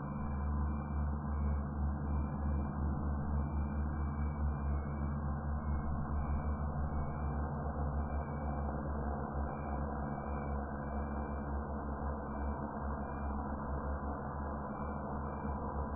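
DJI FPV drone hovering, its four motors and propellers giving a steady hum of several low tones.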